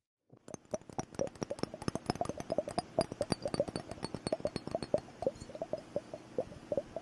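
Liquid bubble timer gurgling close to the microphone: a rapid, irregular stream of small bubbly plops and clicks, starting about half a second in.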